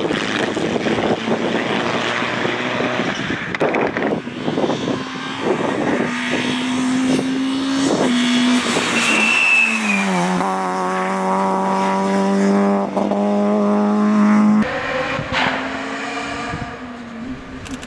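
Rally cars at speed one after another, engines revving hard with pitch steps from gear changes and lifts off the throttle. A short tyre squeal about nine seconds in.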